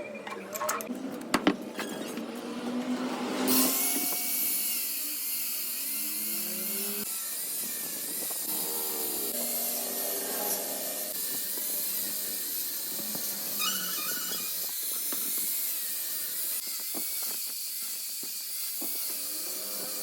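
Workshop machine noise: a few sharp clicks, then a steady loud hiss with a high wavering whine, like a power tool or motor running.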